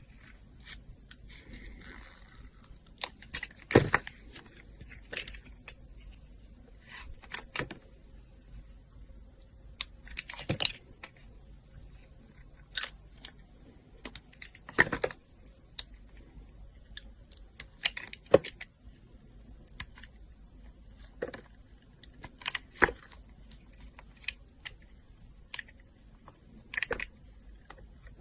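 Dry soap being cut or carved with a knife: short, crisp crunches and cracks at irregular intervals, about a dozen in all.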